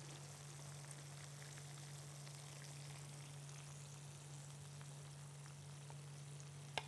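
Faint sizzling crackle of meatballs in sauce in a hot frying pan, over a steady low hum, with one short click of a utensil near the end.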